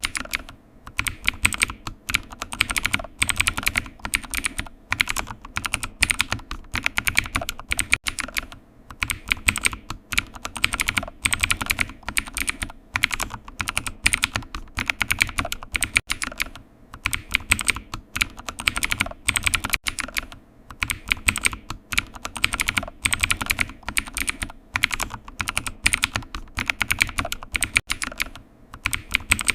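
Computer keyboard typing: quick runs of key clicks, several a second, broken every few seconds by short pauses.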